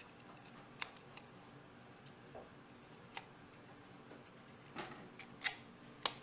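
Seafood shears cutting through the shell of a steamed lobster: a few scattered sharp snips and cracks, the loudest just before the end.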